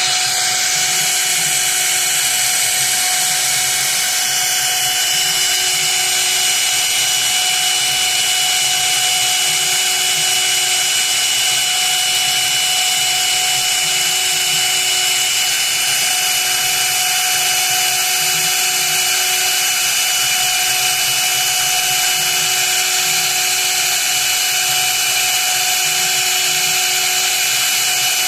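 Small high-speed CNC spindle running steadily while machining a copper-clad circuit board: a constant whine over an even hiss, with no change in pitch or level.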